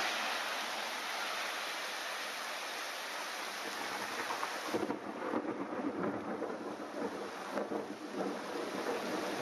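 Heavy rain hissing steadily in a thunderstorm; about halfway through, thunder rumbles in and rolls on unevenly beneath the rain.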